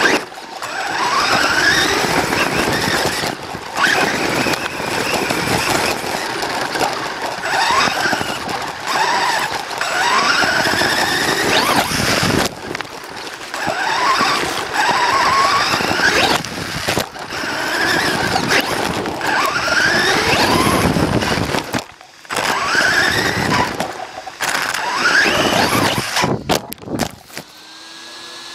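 Electric RC truck's motor whining and rising in pitch with each burst of throttle, over the rattle of the chassis and tyres on dirt, heard from a camera mounted on the chassis. The bursts come again and again with short breaks, and the motor stops near the end.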